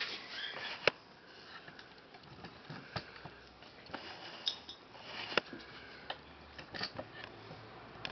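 Maine coon kittens playing with toys on a bed: soft scratchy rustling broken by several sharp clicks, the loudest about a second in.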